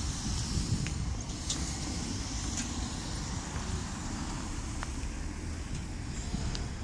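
Road traffic on a city street, with cars close by at a pedestrian crossing: a steady low rumble of engines and tyres.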